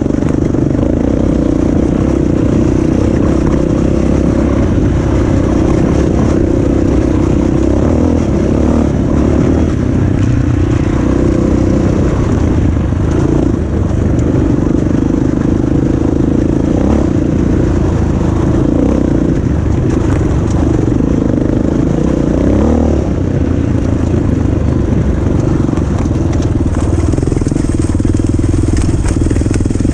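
Enduro dirt bike engine running under way on a rough track, its note rising and falling a little with the throttle.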